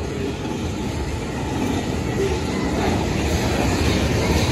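Covered hopper cars of a freight train rolling past, steel wheels rumbling on the rails, growing steadily louder.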